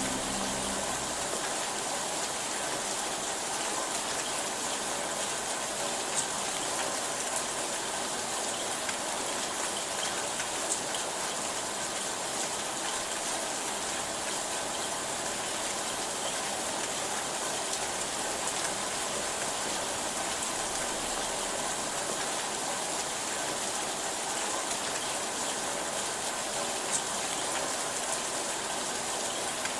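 Steady rainfall: an even hiss of rain with occasional sharper drop ticks.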